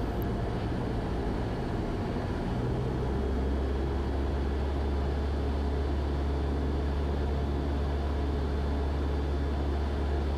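Cessna 172 Skyhawk's piston engine and propeller droning steadily inside the cabin, with a low hum that grows stronger about three seconds in.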